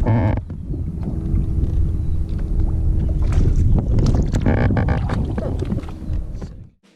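Low rumble of a bass boat's outboard motor under heavy wind buffeting on the microphone, cutting off abruptly near the end.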